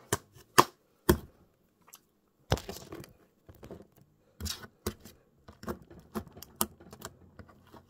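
Purple glitter slime being kneaded and pressed with the fingers, giving irregular sharp clicks and pops, the loudest in the first second or so.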